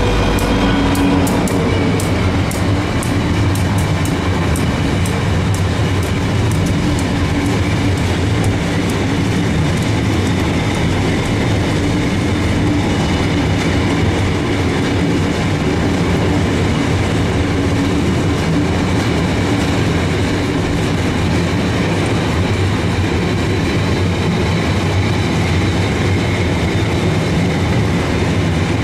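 Class 59 diesel locomotive 59206 passing, its EMD two-stroke engine fading away within the first couple of seconds. It is followed by a long rake of loaded stone hopper wagons rolling by with a steady low rumble. Wheels click over rail joints, the clicking densest in the first nine seconds or so.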